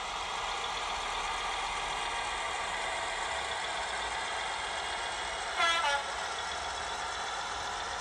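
Model-railway sound decoder (ESU LokSound) playing a Class 58 diesel locomotive sound file through the model's small speaker: the diesel engine runs steadily as the model moves, and about five and a half seconds in a short horn blast sounds.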